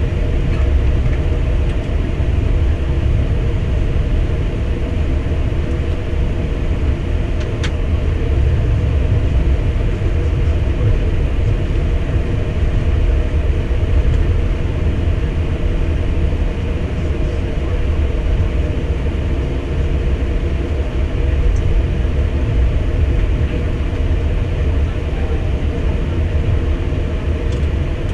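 Steady low rumble inside an Airbus A320 cockpit as the airliner rolls along the ground after landing, engines at idle. A single faint click comes about seven and a half seconds in.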